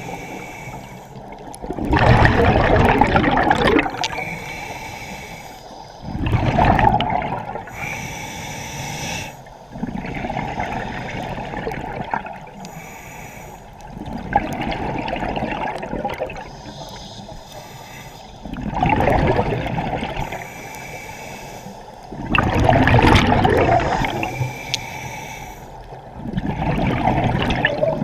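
Scuba diver breathing through a regulator underwater. About every four seconds comes a rush of exhaled bubbles, and quieter hissing from the regulator falls between the bubble rushes.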